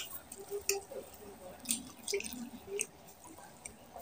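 Wet squishing of fingers kneading rice together with mutton curry gravy, with scattered sharp sticky clicks and some chewing.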